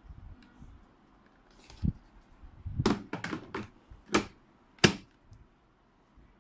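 Hard plastic parts of a vacuum cleaner's dust container being handled and fitted, giving about half a dozen sharp clicks and knocks over a few seconds, the loudest near the end.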